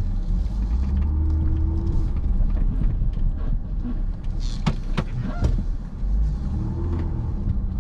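Vehicle cabin road noise while driving on a rough dirt road: a steady low rumble, with a few sharp knocks and rattles about halfway through.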